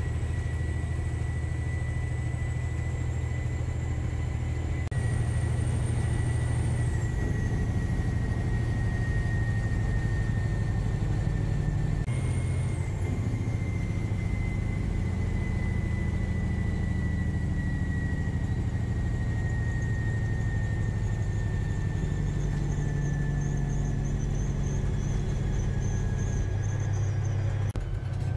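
Cab noise of a 2015 Peterbilt 389 glider kit truck cruising down the highway: a steady deep engine drone, with a thin high whine above it that slowly drifts lower in pitch. The sound jumps abruptly twice.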